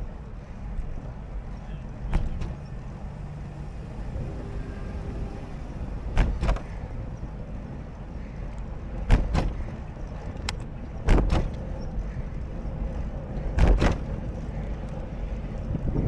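Steady low rumble of riding along a road, broken by about six sharp knocks or jolts spread across the stretch.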